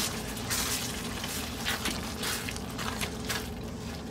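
Thick chana dal being stirred with a silicone spatula in a nonstick pan as it cooks and sizzles, with irregular swishing and scraping strokes.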